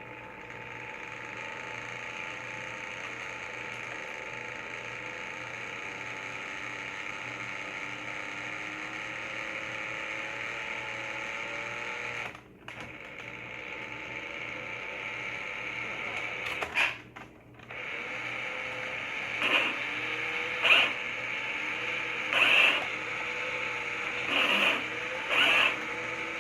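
A battery-powered toy excavator's small electric motors and plastic gearboxes whirring steadily, cutting out briefly twice. In the last third come five short, louder creaking, ratcheting bursts from the gears.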